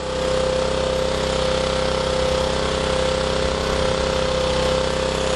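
Small portable gasoline generator running steadily under a 500-watt halogen light load, holding one constant pitch.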